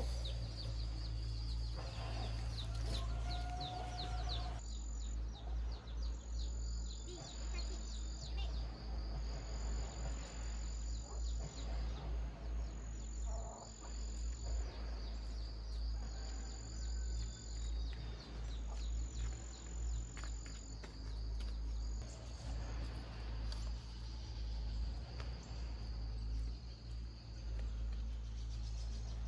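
Insects calling: a steady high trill, joined by a high drawn-out note repeated about every two seconds through the middle, with bird chirps in the first few seconds and a low steady rumble underneath.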